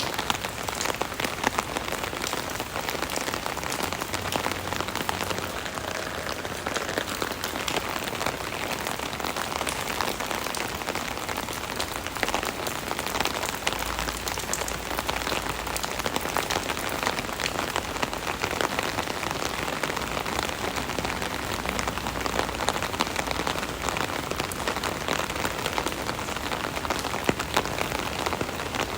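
Steady rain falling on an umbrella canopy, a dense, even patter of many small drop impacts.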